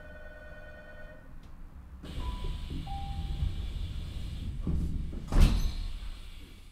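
Passenger sliding doors of a Tokyu 5000 series train closing at a station stop: a short two-note falling door chime, the rush of the doors moving, then a loud thud as they shut about five seconds in.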